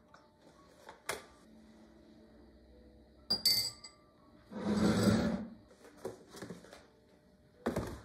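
Kitchen-counter handling sounds: a straw dropped into a glass of iced coffee gives a sharp clink with a short ring. A louder scrape of about a second follows, then a few small clicks and a knock near the end as cookie tins are set down on the counter.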